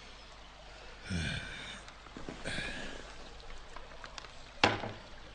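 Quiet room tone with two brief low vocal sounds in the first half, then a single sharp knock about four and a half seconds in.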